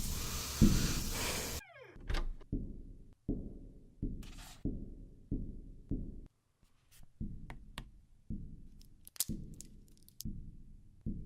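A steady hiss cuts off suddenly near the start, leaving a slow, regular series of dull low thuds, mostly in pairs about one pair a second, with a few faint sharp clicks between them.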